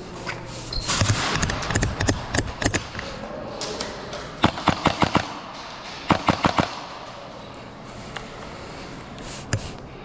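Airsoft gunfire in short bursts: scattered shots early on, a quick string of about six shots midway, then four more, and a single shot near the end.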